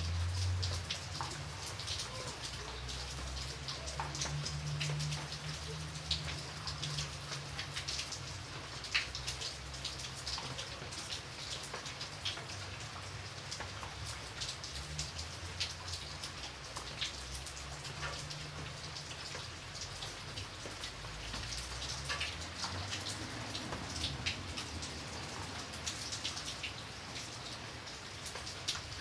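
Light rain falling: a steady hiss with many separate drops ticking on a surface. A low rumble underneath comes and goes.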